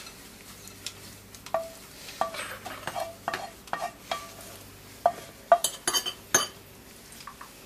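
A wooden spoon scraping and knocking against a frying pan as sausages in tomato sauce are pushed out of it. It makes a string of irregular knocks, many with a brief ringing note, and a few sharper clicks near the end.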